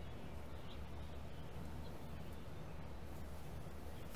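Quiet outdoor ambience: a steady low hum with a faint bird chirp under a second in.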